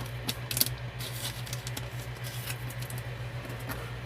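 Trading cards being handled: faint scattered taps, clicks and rustles of cards and packaging, over a steady low electrical hum.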